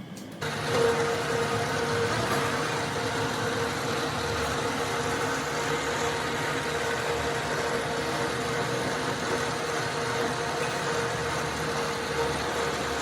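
Lathe running steadily with an even machine hum, starting abruptly just under half a second in.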